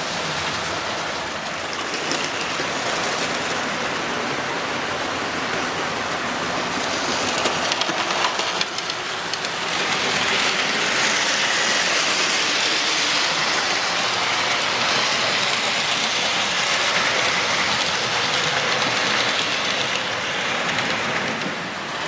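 Model railway trains running on the layout: a steady hiss of small wheels and motors on the track, with clicks over the rail joints around two and eight seconds in, louder from about ten seconds in.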